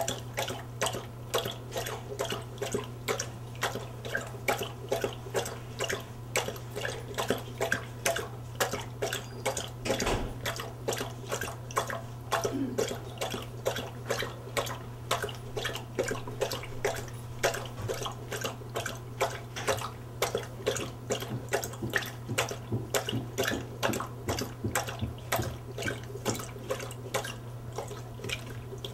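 Basset hound lapping water from a metal bowl, a steady run of wet laps about three a second.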